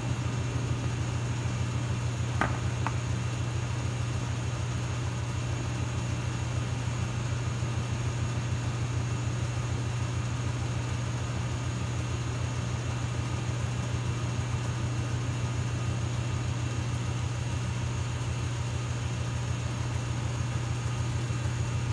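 A machine running steadily: a low, even drone with a fast pulse, and a faint hiss above it.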